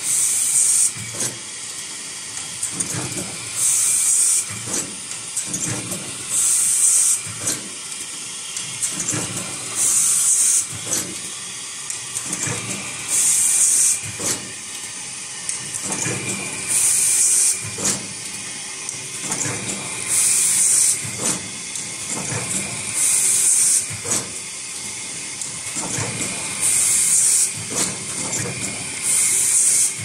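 YH-880 semi-automatic plug crimping machine cycling. Its pneumatic air cylinders let out a sharp hiss of exhaust air about every three seconds, with steady clicking and knocking from the moving mechanism in between.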